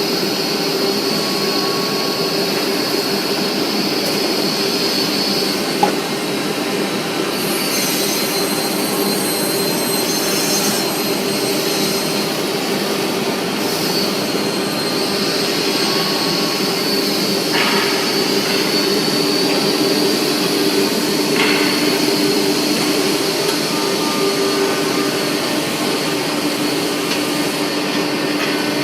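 Horizontal panel saw running steadily, its motor and spinning blade giving a constant whine. The sound turns harsher for a few seconds about eight seconds in and again briefly around fourteen seconds.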